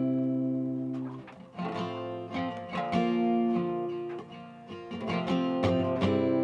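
Outro music: acoustic guitar strumming chords.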